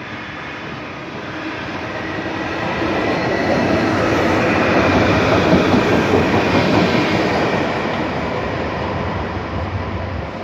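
A Long Island Rail Road electric commuter train passes close by on the rails. It grows louder as it nears, is loudest about halfway through, then fades as it moves away.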